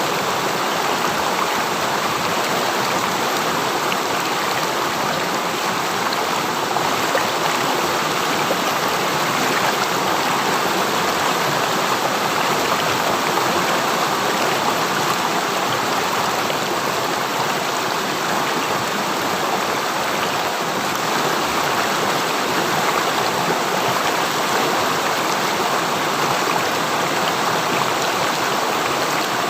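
River stream flowing: a steady, even rush of running water.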